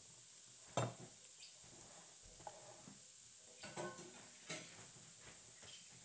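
A few light clinks and knocks of kitchen utensils and dishes being handled, the loudest about a second in and a small cluster past the middle.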